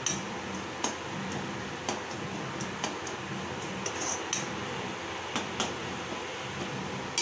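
Slotted steel spatula scraping and clinking against an aluminium kadai as frying onions and tomatoes are stirred: irregular clinks every half second to a second over a steady low hum.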